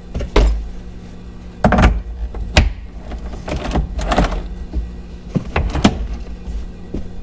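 Tools and parts clunking while a steering wheel is bolted onto a quick release hub adapter: a string of separate, irregular knocks and clicks.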